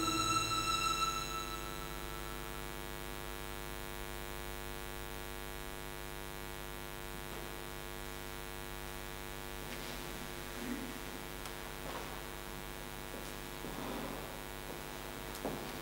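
Steady electrical mains hum, after a violin's last bowed note fades out in the first second or two. A few faint soft knocks and rustles sound near the end.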